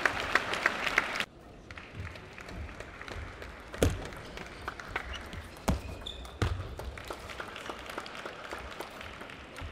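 Table tennis ball clicking off paddles and table: sharp separate ticks, loudest about four and six seconds in, then a run of lighter ticks. The first second holds clapping and crowd noise that cuts off suddenly.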